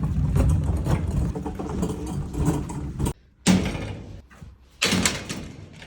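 A vehicle's engine running, heard in a few short clips cut together.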